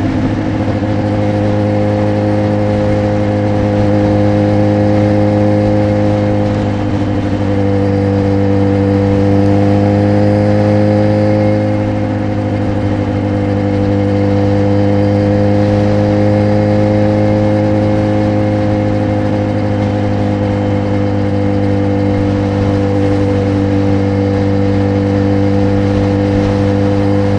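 Motorcycle engine and exhaust running steadily at cruising speed, heard from the rider's seat. The pitch holds fairly even with small rises and dips, over a light hiss of wind and road noise.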